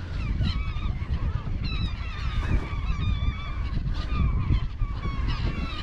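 A flock of seagulls in a feeding frenzy, many birds calling at once in short, overlapping cries, over a steady low rumble.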